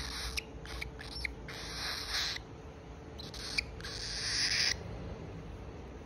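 Young cockatiel giving a few raspy hisses while being stroked, the longest two near the middle and towards the end, with brief squeaky chirps between them.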